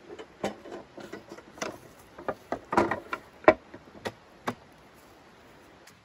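Small metal folding camp table being handled and unfolded: a quick series of clicks and clanks over about four seconds, the loudest about three and a half seconds in.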